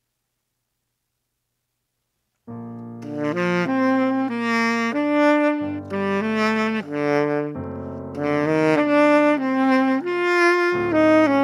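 Near silence for about two and a half seconds. Then a tenor saxophone starts playing a melody over held piano chords that change every few seconds.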